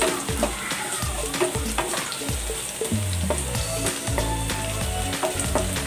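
Garlic frying in hot oil in a nonstick pan: a steady sizzle, with short clicks and scrapes from a wooden spatula stirring it, as the garlic cooks toward golden brown. Low background music runs underneath.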